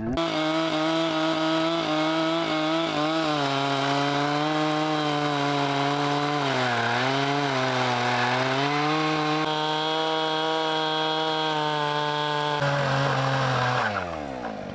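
Two-stroke chainsaw running at high revs, cutting into a large log. The engine note sags and recovers a couple of times around the middle, then drops away near the end as the throttle is let off.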